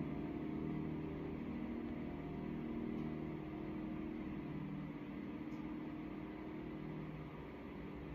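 Piano chord held and ringing on, several low notes sustaining and slowly dying away.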